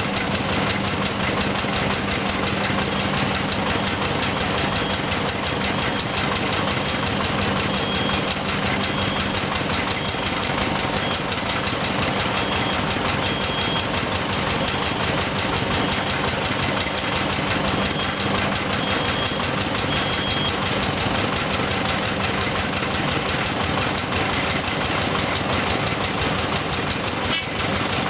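Diesel engine of a Sany SR150C hydraulic rotary piling rig running steadily at idle, an even fast chugging with a steady low hum.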